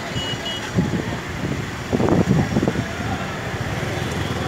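Steady traffic noise on a wet, jammed road: the running of idling vehicles and a constant hiss, with a louder low burst of noise about two seconds in.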